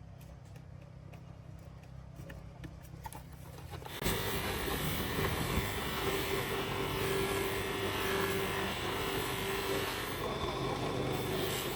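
A small handheld electric power tool starts about four seconds in and then runs steadily and loudly with a constant hum. Before that there are only a low hum and a few light clicks.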